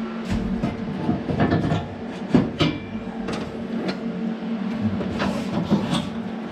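Scattered metal knocks and clanks as a welded steel gearbox crossmember is offered up under a car and worked into place, over a steady low hum.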